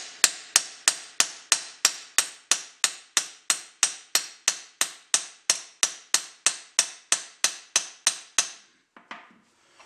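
Hammer tapping a steel punch (a cut-off 19 mm Allen wrench) to drive the old wooden handle out of an axe head's eye. A steady run of sharp metallic strikes with a high ring, about three a second, stops a little over a second before the end.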